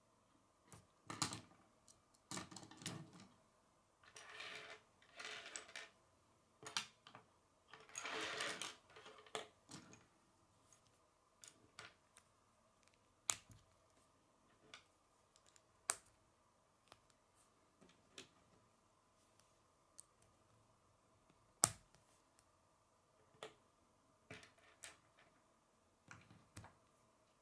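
Plastic K'nex rods and connectors clicking and snapping together as they are handled and assembled, with a few longer rustling scrapes in the first third and scattered clicks after. One sharp snap about two-thirds through is the loudest.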